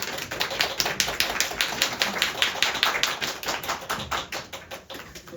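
Small audience clapping, a dense patter of many hands that thins out and stops near the end.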